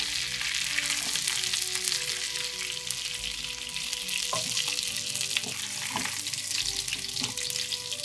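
Hilsa fish frying in mustard oil in a non-stick pan: a steady crackling sizzle, with a few short scrapes and knocks of a utensil as the pieces are lifted out.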